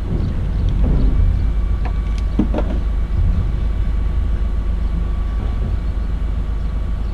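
Steady low rumble with a few scattered clicks and knocks.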